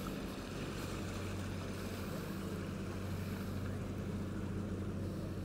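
A motor boat's engine running at a steady low hum on the river.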